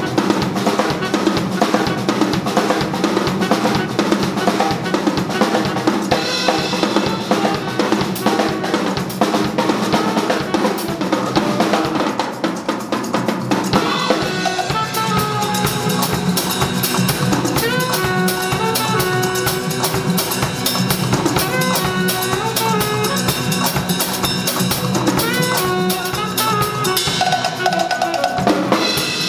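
Live saxophone and drum kit playing together in a jazz style: busy, fast drumming with snare, bass drum and cymbals. A saxophone melody comes through much more clearly from about halfway through.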